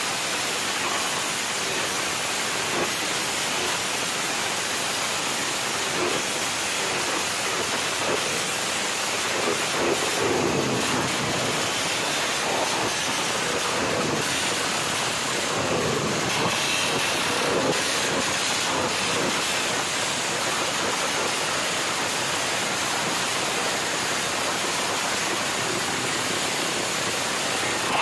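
Motorcycle engine with an aftermarket exhaust running loud, heard as a steady, noisy rush without a clear pitch, a little louder about ten seconds in and again around sixteen to eighteen seconds in.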